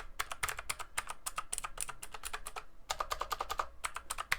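Motospeed CK95 mechanical keyboard with Outemu Blue clicky switches being typed on in a rapid run of sharp clicks, each keypress giving a distinct click; fairly noisy.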